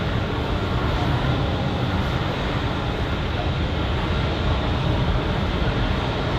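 Jet airliner engines, a loud steady noise heavy in the low end that holds unchanged throughout.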